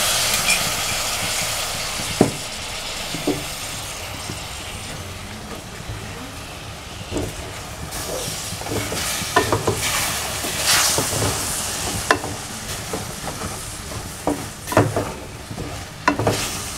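Jaggery with a little water sizzling as it melts in a metal frying pan. The sizzle is loudest at first and slowly dies down, while a wooden spatula stirs and scrapes, giving scattered knocks against the pan that come more often in the second half.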